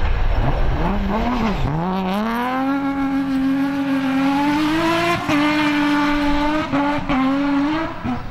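BMW 3 Series (E36) rally car's engine under hard throttle on a gravel stage. The revs rise and fall through the corner, then climb steeply and hold high, broken by two quick upshifts about five and seven seconds in, before the driver lets off near the end.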